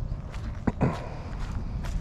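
Footsteps on dry grass, pine needles and sandy ground, with a few sharper crunches.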